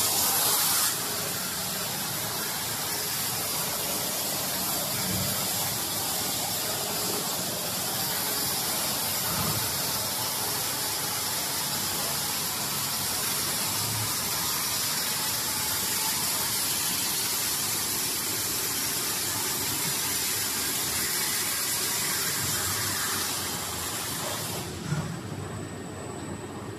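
Steady hiss of a hot melt adhesive film extrusion and winding line running, the high part of the hiss falling away about 24 seconds in.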